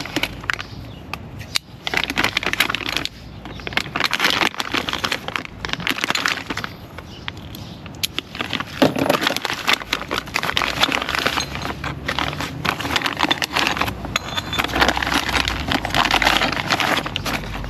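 Packaging crinkling and rustling as a parcel of new zinc anodes is unwrapped and handled, with many small irregular clicks and crackles.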